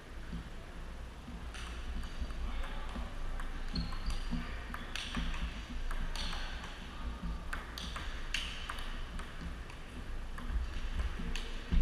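Table tennis ball in a rally: quick, irregular sharp clicks as the celluloid or plastic ball strikes the paddles and the table top, some with a short high ring. There are fainter clicks from other tables and one louder knock near the end.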